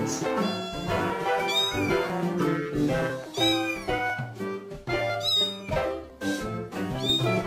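A cat meowing four times, short high calls about two seconds apart, each rising then falling, over background music.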